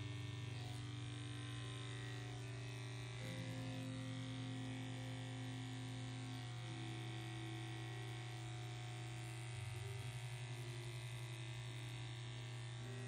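Cordless Heiniger pet clipper with a 30 blade running with a steady electric hum as it trims the hair between a dog's paw pads.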